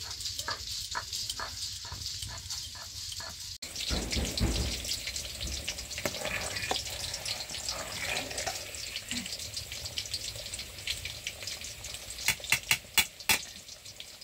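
Spices being ground by hand on a stone slab (shil-pata), the grinding stone making rhythmic stone-on-stone strokes about three a second. After a cut, rice boiling in an aluminium pot of water, stirred with a metal ladle, with a few sharp metal knocks near the end.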